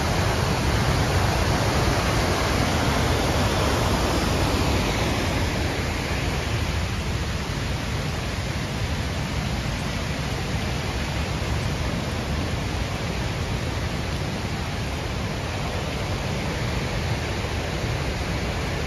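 Steady roar of Brush Creek Falls and its creek running high and muddy in flood after heavy rain. The rushing eases off a little several seconds in.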